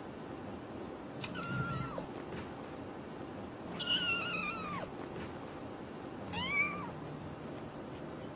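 A kitten meowing three times: high-pitched cries that fall in pitch at the end, the middle one the longest, at a little over a second.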